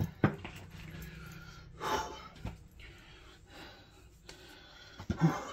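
A man breathing hard after lifting a heavy boiler, with heavy exhales about two seconds in and near the end. There is a sharp click just after the start.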